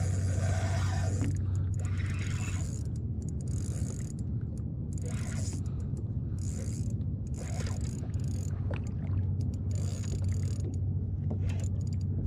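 Fishing reel being cranked to bring in a hooked fish, its gears whirring and its ratchet clicking in short runs, over a steady low hum.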